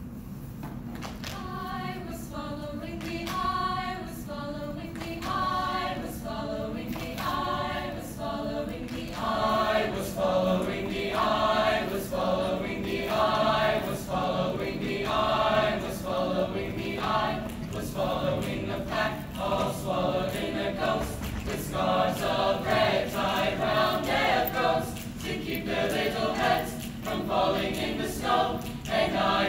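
Mixed choir of male and female voices singing unaccompanied in sustained chords, starting soft and growing louder over the first several seconds.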